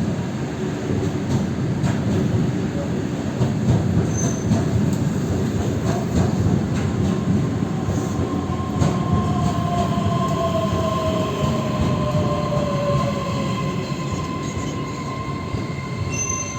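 Electric multiple-unit train, the EG2Tv Ivolga, running close by on the rails with a loud, steady rumble of wheels. From about seven seconds in, a whine falls in pitch while a steady high tone starts and holds.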